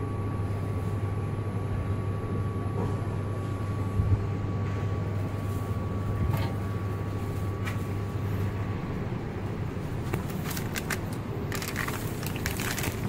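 Steady low hum of the surroundings with a few soft clicks, then from about ten seconds in a run of crinkling as a plastic-wrapped parcel is handled and pulled out of a metal parcel locker.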